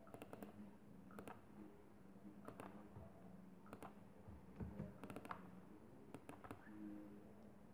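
Faint computer mouse clicks, scattered and some in quick pairs like double-clicks, over a low steady hum.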